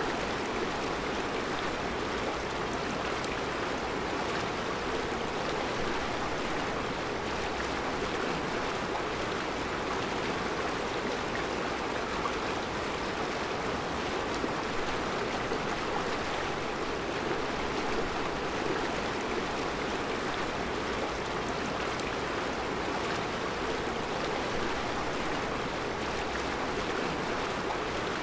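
Mountain river flowing over round rocks in a rocky bed: a steady, even rush of water.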